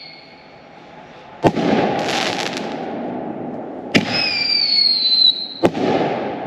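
Consumer artillery shell fireworks going off: three sharp bangs, the first trailed by a hissing crackle and the second by a whistle that falls slightly in pitch.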